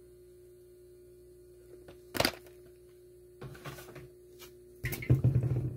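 Handling noise from a plastic blister-packed die-cast car card being turned over and set aside: a sharp click about two seconds in, then soft rustles and bumps, louder near the end, over a steady faint hum.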